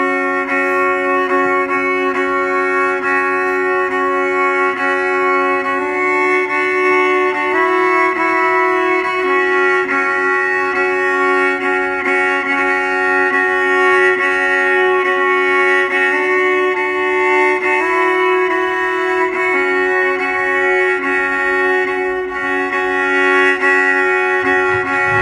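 Violin playing slow, long-held notes over a steady sustained drone, the notes shifting every few seconds. The full band comes in loudly at the very end.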